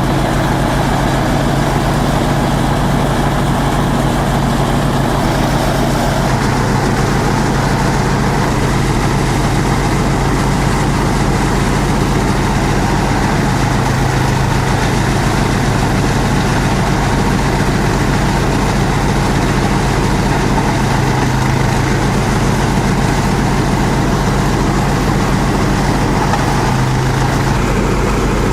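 Esteban multi-purpose chopper-shredder machine running steadily at a constant speed, with a loud, even mechanical hum.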